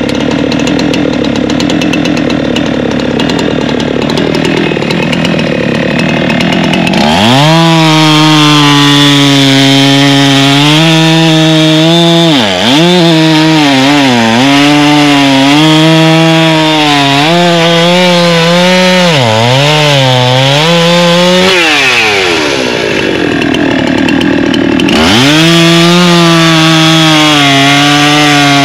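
Two-stroke chainsaws cutting firewood logs. For the first several seconds a rougher, less even saw sound is heard. About seven seconds in, a saw revs up to full throttle, and its pitch dips briefly a few times as it bogs in the cut. Its pitch falls away about two-thirds of the way through, then it revs back up a few seconds later.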